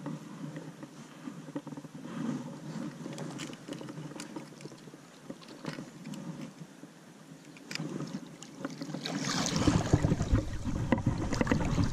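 Faint water and tackle-handling noise, then about nine seconds in a hooked brook trout thrashing and splashing at the surface as it is brought to the landing net. The splashing is the loudest part.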